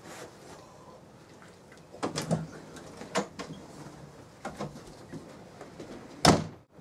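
Footsteps and handling knocks at an interior door, then the door shutting with a thump near the end.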